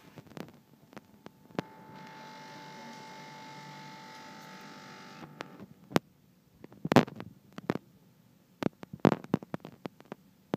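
A steady electric hum that starts about two seconds in and cuts off after about three seconds, then a run of sharp clicks and knocks of bottles, jars and plastic containers being handled in a refrigerator, the loudest about seven seconds in.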